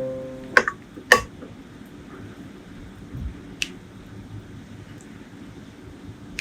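Piano music fading out at the very start, then a few sharp clicks and taps of eating utensils on dishes: two close together in the first second or so and another about three and a half seconds in.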